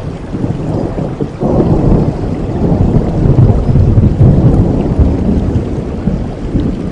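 Steady rain with a long rolling thunder rumble that swells about a second and a half in, is loudest around the middle, then eases a little.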